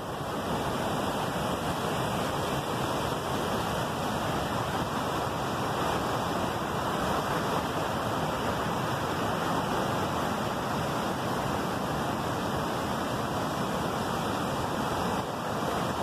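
Steady rush of river water tumbling over rocky rapids, a constant even hiss without a break.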